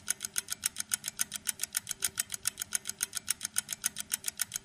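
Rapid, perfectly even ticking, about eight ticks a second, like a fast clock ticking sound effect laid over the scene.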